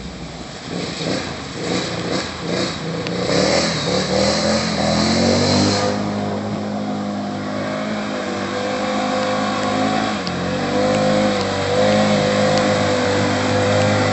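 Can-Am 650 ATV's V-twin engine revving up as it drives into a river, then pulling steadily through the water, with the tyres churning up splashing water. The engine's pitch climbs over the first several seconds, then holds, dipping briefly about two-thirds of the way through.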